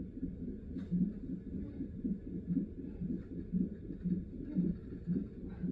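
Fetal heart monitor playing the baby's heartbeat during labor: a low, even pulse at about two beats a second.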